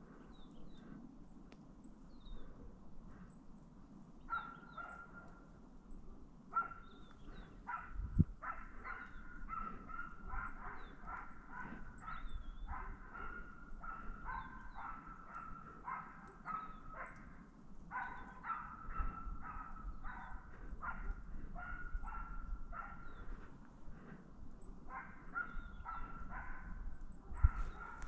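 A Wachtelhund barking away in the forest in quick, steady runs of about two to three barks a second: the hound's bay (los) while it follows game. The barks start sporadically about four seconds in, run almost without break from about eight seconds, pause briefly and resume near the end.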